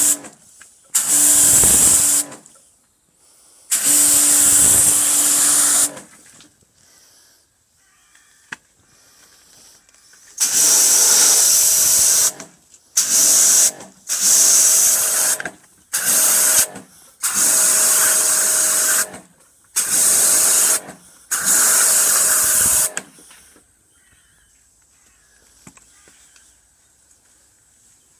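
Bosch AQT 45-14X electric pressure washer spraying paving slabs in about nine bursts of one to two seconds as the trigger is pulled and released: a steady motor hum under the hiss of the water jet, stopping each time the trigger is let go. It falls quiet near the end.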